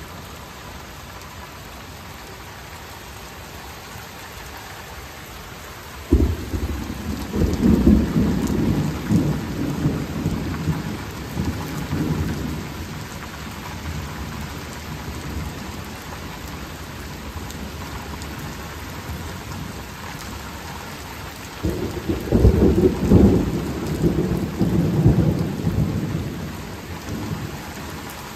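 Steady rain falling, with two long rolls of thunder: the first breaks suddenly about six seconds in and rumbles on for several seconds, the second comes about two-thirds of the way through and rumbles for about five seconds.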